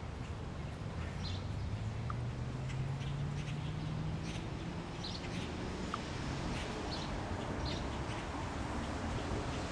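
Small birds chirping in short, high calls every second or so over a steady low rumble. An engine's low drone rises in pitch from about a second in, then fades back into the rumble.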